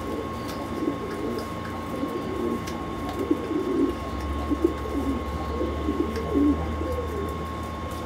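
Several domestic pigeons cooing, a run of low repeated coos overlapping one another. A steady hum lies underneath, with a deeper hum joining about four seconds in.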